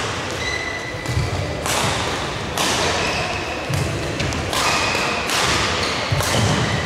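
Badminton rally in a sports hall: sharp racket strikes on the shuttlecock about once a second, with players' shoes thudding and squeaking on the court.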